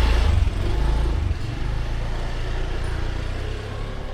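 Low engine rumble of a motor vehicle passing close by, loudest at the start and fading away.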